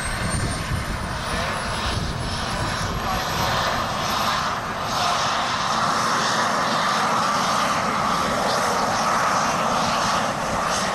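Miniature jet turbines of a giant-scale RC Avro Vulcan model running on the ground: a steady rushing whine, with a thin high whistle climbing in pitch near the start. The rush grows a little louder about five seconds in.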